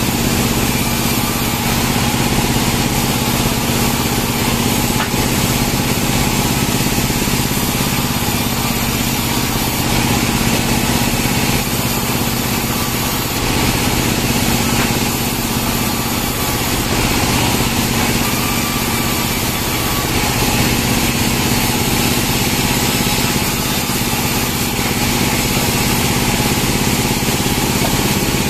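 Band sawmill running steadily: a constant machine drone with a held hum that does not change.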